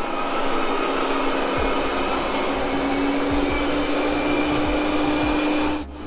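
Proscenic M9 robot vacuum running on carpet: a steady rushing suction noise with a steady hum under it. It drops away sharply near the end.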